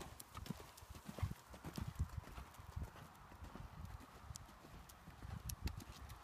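Horse cantering on a sand arena: a steady run of soft, dull hoofbeats.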